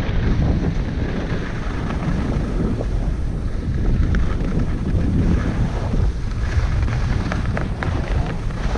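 Wind buffeting the camera microphone of a skier moving downhill, a steady rushing noise. Under it, skis hiss and scrape over packed snow, with a few short scratchy clicks.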